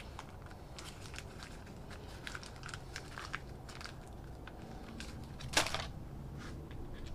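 Bolt being threaded into a freshly installed Helicoil insert in a stripped transmission bolt hole: small, irregular metal clicks and scrapes, with one louder scrape about five and a half seconds in. The repaired thread takes the bolt.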